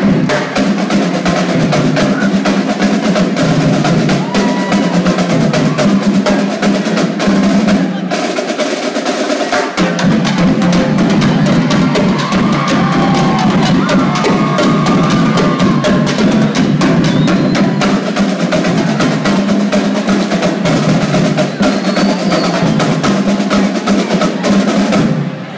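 Marching drumline of snare drums, tenor drums and bass drums playing a fast, rhythmic cadence with rolls. The drumming stops abruptly just before the end.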